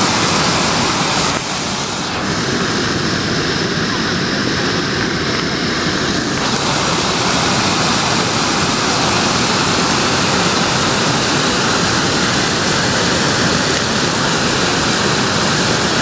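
Small waterfall rushing over stacked stone ledges: a loud, steady splash of falling water, a little softer and duller for a few seconds near the start.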